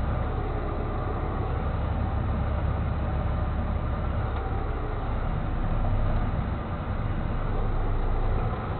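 Heavy tow truck's diesel engine running steadily as the truck manoeuvres, heard from inside its cab as an even, low-pitched drone.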